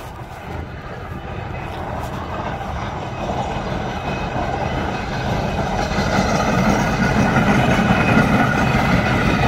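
Steam traction engine running as it comes along the road, growing steadily louder as it nears. A faint steady high whine joins about halfway through.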